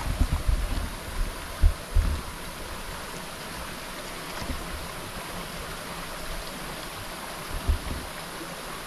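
A stream running steadily, with a few low thumps on the microphone in the first two seconds and again near the end.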